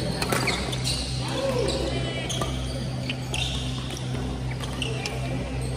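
Badminton doubles rally: sharp pops of rackets striking the shuttlecock at irregular intervals, with shoe squeaks on the wooden court floor, over a steady low hum.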